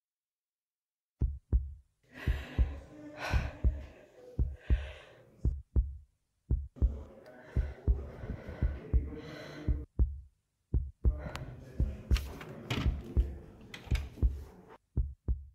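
A run of dull low thumps at an uneven pace, two or three a second, with a hiss between them, cut off twice by brief silences.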